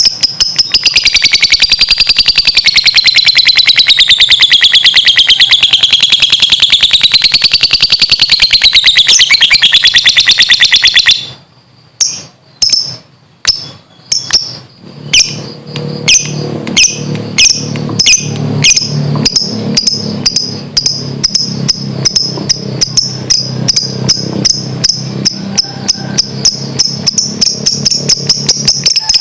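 Lovebird ngekek: a long, fast, rattling chatter of repeated high notes that wavers in pitch for about the first eleven seconds. It then breaks into separate sharp chirps at a steady quick rate, with a low steady sound beneath them in the second half.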